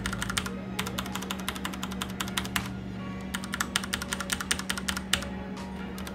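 Ducky Zero mechanical keyboard with Cherry MX Brown switches being typed on quickly, in runs of key clicks broken by short pauses. This is a typing test to compare the sound of thick PBT keycaps with the stock keycaps.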